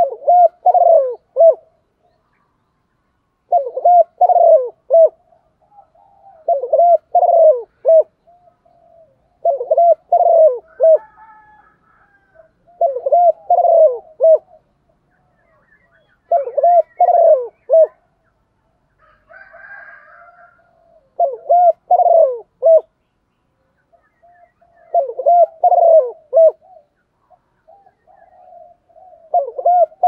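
Spotted dove cooing: a female's coo, used to call male doves into cooing back. A short three-note phrase is repeated about every three to four seconds, with faint higher chirps from another bird in between.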